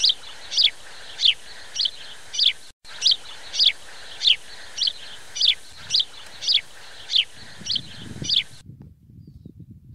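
A bird calling one short, high, falling note over and over, about every half second, which cuts off suddenly near the end. Low rumbling noise follows.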